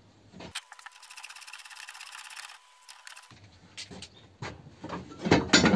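Impact wrench hammering in a fast, even rattle for about three seconds on a nut on a Ford 100E front suspension strut held in a vise. It is followed by several sharp metal clanks and knocks, loudest near the end.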